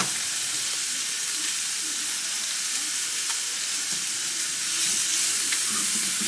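Chicken breast strips frying in an oiled skillet at medium heat: a steady sizzle that grows a little louder near the end.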